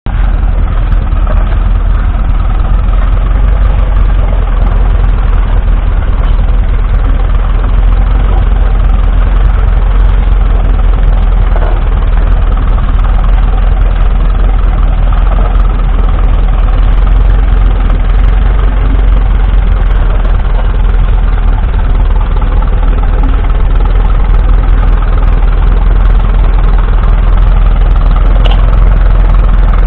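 1951 Ferguson TED20 tractor's 2.1-litre four-cylinder petrol/TVO engine running steadily.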